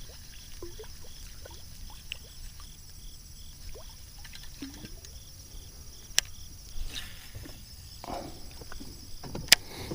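Small water plops and light splashes on the lake surface, with two sharp clicks partway through and a steady drone of insects behind.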